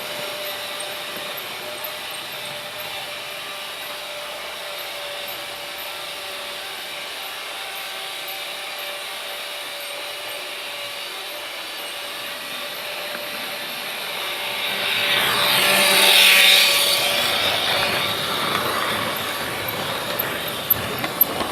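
Freight train rolling by: steady rail noise with a thin, steady whine, swelling louder about three-quarters of the way through and easing off again, with a few sharp clanks near the end.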